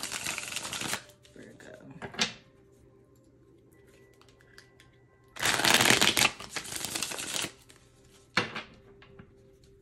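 A deck of cards shuffled by hand in two spells: a dense rustling run in the first second, and another lasting about two seconds from halfway through. A sharp tap comes near the end.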